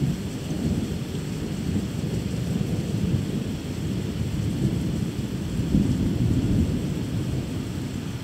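Thunder rumbling low and rolling through a thunderstorm, swelling loudest about six seconds in, with rain hissing underneath.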